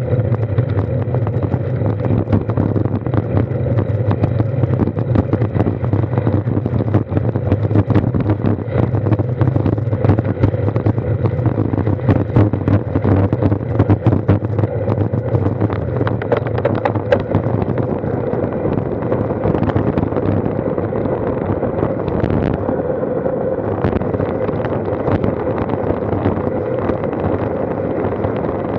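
Wind buffeting a handlebar-mounted action camera on a road bike descending at speed, over steady rumble and hum from the tyres on the asphalt and rattling knocks as the bars jolt on the road. The knocks thin out about two thirds of the way through.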